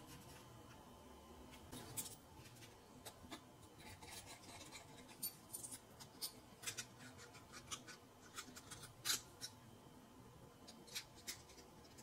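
Faint, scattered clicks and light scratching as a thin plastic lid disc is handled and fitted onto a metal bolt with a washer and nut. The clicks come irregularly from about two seconds in, the sharpest near the end.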